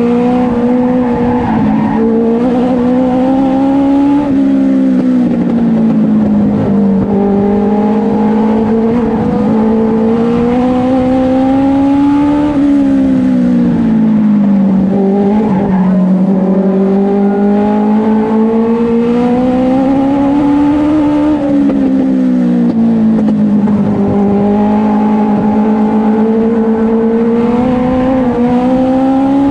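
Race car engine heard from inside the cockpit under racing load. Its pitch climbs as the car accelerates and sags as it slows, in a repeating cycle about every eight seconds, the rhythm of laps around the track.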